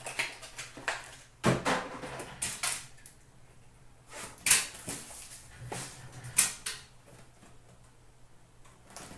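Trading cards being handled by hand: a series of short rustles, slides and light slaps of card stock, about half a dozen, with quiet gaps between.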